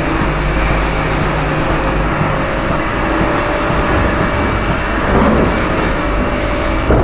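Steady din of a CNC machining floor, with lathes and parts-loading robot arms running: a constant noisy hum with a faint steady tone over it, and a brief swell about five seconds in.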